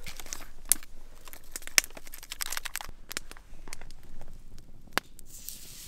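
Raw ground beef being seasoned and mixed by hand, a squishing, crinkling handling noise with scattered sharp clicks. About five seconds in, a steady hiss takes over.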